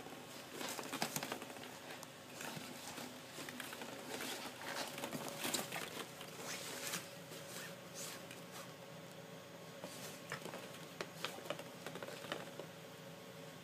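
Hollow plastic ball-pit balls clicking and rustling against each other as a Shetland sheepdog puppy noses and digs through them, in quick irregular clicks that thin out near the end.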